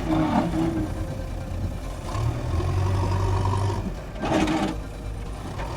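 Bulldozer's diesel engine running, its low hum growing stronger for about two seconds in the middle, with a short burst of noise about four seconds in.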